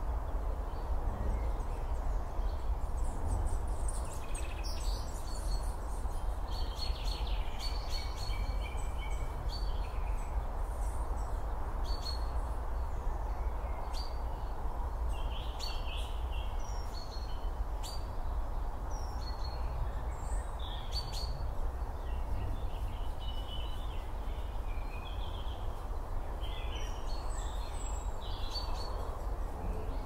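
Wild birds chirping and calling, many short high calls scattered throughout, over a steady outdoor hiss and low rumble.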